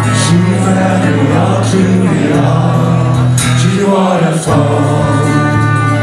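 Live band music: a man singing with acoustic guitar and trumpet playing together, with sustained low notes underneath.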